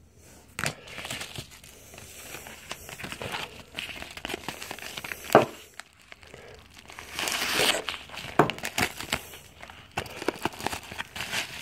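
Yellow padded envelope (bubble mailer) being handled, its paper and padding crinkling in irregular bursts with a few sharp snaps, loudest a little past the middle.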